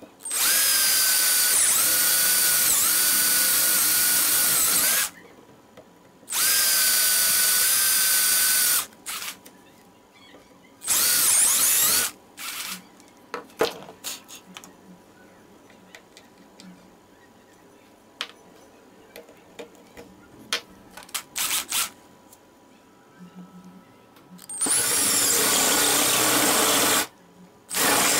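Cordless drill running at a steady high whine while boring holes into a wooden board. It runs in separate bursts: a long one of about five seconds, then two shorter ones. After a quiet stretch with light taps and clicks, there is another burst of about two and a half seconds near the end and a brief one right at the end.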